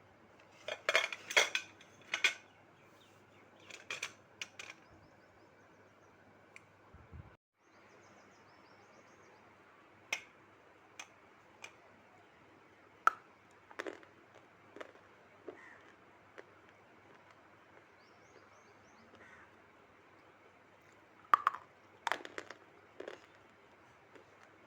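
Sharp crunches and clicks in short scattered clusters, the loudest ones about a second in and again around twenty-one seconds, over a faint steady hum.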